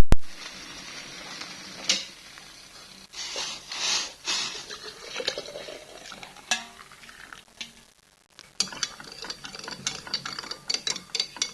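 Kitchen handling sounds: dishes and utensils clinking and scraping in a run of sharp clicks and short rustles, with a loud knock at the start and a brief drop-out about two-thirds through.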